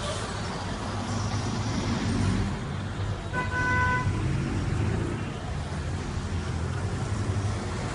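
Street traffic with a steady low rumble of passing vehicles; a car horn toots once, briefly, about three and a half seconds in.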